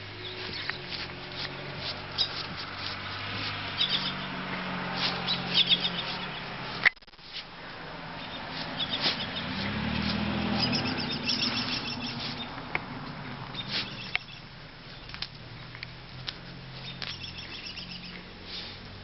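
German Shepherd puppy digging, its paws scratching and scraping in quick, irregular strokes. Birds chirp in the background over a low steady hum, and the sound breaks off abruptly once, a third of the way in.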